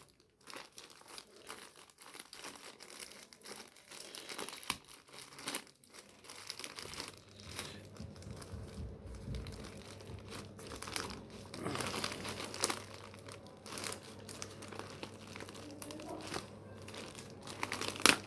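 Parcel packaging crinkling and crackling irregularly as it is handled and pulled open by hand, with bits of tearing.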